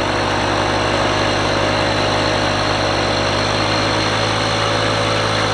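Engine of an off-road SUV running steadily at idle, without revving. It has an even low pulsing.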